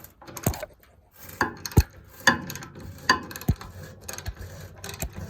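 Hand tools clanking and knocking on the tractor's sheet-metal hood and its bolts while the hood's 5/8 bolts are worked loose. There are about seven sharp knocks at uneven spacing, several with a brief metallic ring.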